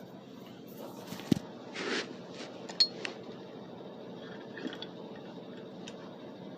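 Scattered clinks, knocks and scrapes of metal parts and a tool being handled, with a few sharp knocks between about one and three seconds in, over a faint steady hum.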